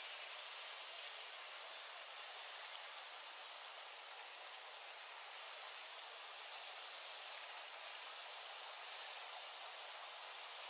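Steady soft hiss of freezing rain falling on open water and dry grass, with a few faint high chirps.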